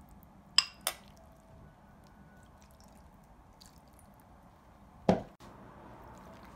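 Metal spoon clinking sharply twice against the platter as onion-and-salt broth is spooned over boiled meat, then a single dull knock about five seconds in.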